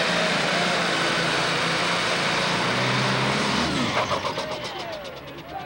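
Super stock pulling tractor's turbocharged diesel engine running flat out while it drags the weight sled. About four seconds in the engine is throttled back at the end of the pull, its pitch falls and it gets quieter.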